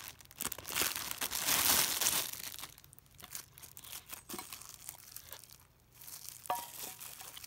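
Clear plastic wrap crinkling and tearing as it is pulled off a pet food dish. The crinkling is loudest and densest over the first two seconds, then turns quieter and scattered, with one light knock about six and a half seconds in.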